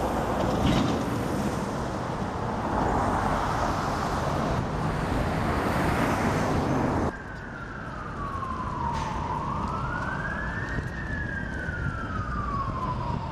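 A loud rushing noise that cuts off suddenly about seven seconds in, followed by an emergency vehicle siren wailing slowly down, up and down again over quieter street noise.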